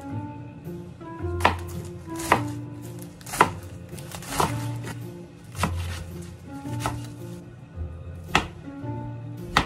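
Knife chopping on a cutting board: slow single strokes roughly a second apart, over background music.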